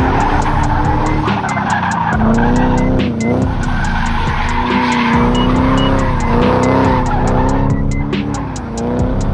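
BMW E30's swapped-in 4.4-litre M62B44 V8 revving hard while drifting, the revs wavering up and down and dropping briefly twice, with tyres squealing and skidding as the car slides.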